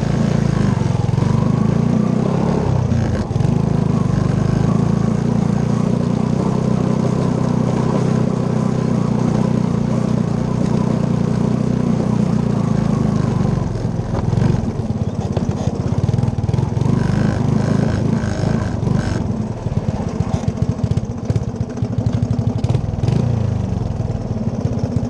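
Three-wheeler ATV engine running steadily as the machine rides over rough ground. About halfway through it slows and settles into an idle with an even, rapid pulsing beat.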